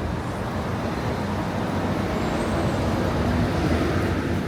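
Busy city street ambience: a steady low rumble of traffic mixed with the general noise of the street.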